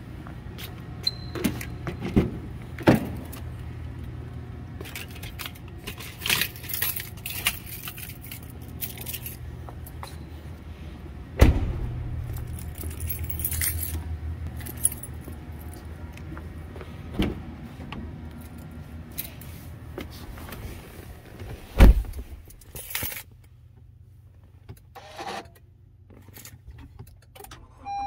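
Car keys jangling in hand and footsteps on a concrete parking-garage floor over a steady low hum. About 22 seconds in comes a loud thud, the car door shutting, and the hum cuts out, leaving the quieter car cabin.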